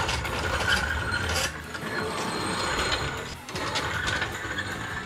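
Steel floor jack rolled by its handle across a concrete floor, its wheels and casters rattling and grinding as it is pushed under the front of the car.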